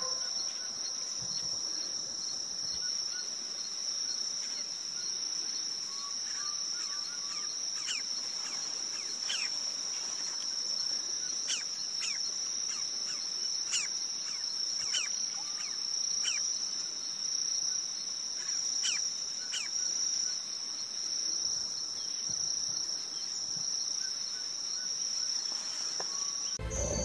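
Steady, high-pitched insect trill, one unbroken tone. About a dozen short falling chirps sound over it in the middle stretch.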